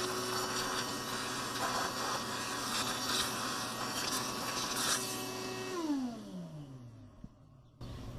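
Shop vacuum running steadily with a hum and a rush of air, then switched off about six seconds in, its motor winding down in falling pitch.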